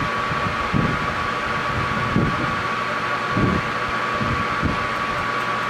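Metal engine lathe running with a steady gear whine, its carriage traveling under power feed with the half-nut engaged on the lead screw while chasing a 14 TPI thread. Soft low knocks come about every second and a quarter.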